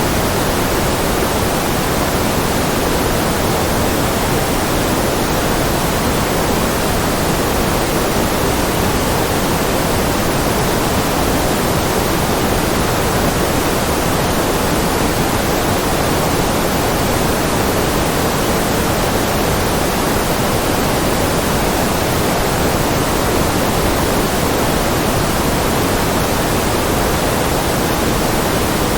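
Steady generated white-noise track: an even, unbroken hiss, fuller in the low and middle range than at the top, with no change in level.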